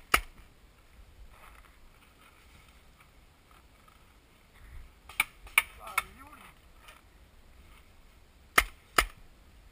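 Paintball fire: sharp, loud single cracks, one at the start, a quick string of three about halfway through and a pair near the end.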